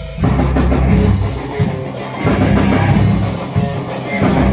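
Rock band playing a song live: drum kit and guitars, loud, with a heavy low end and the playing dropping back briefly about two seconds in and again near the end.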